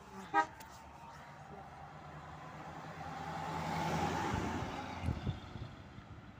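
A classic American sedan's engine and tyres passing by: the engine hum grows as the car approaches, is loudest as it passes about four seconds in, then fades as it drives away. A short, sharp pitched chirp sounds just under half a second in.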